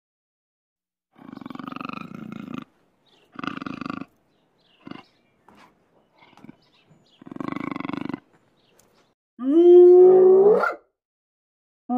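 A large wild cat growls three times in rough, breathy stretches. Near the end a spotted hyena gives a loud call that rises in pitch and ends in a sharp upward sweep, the start of its whoop.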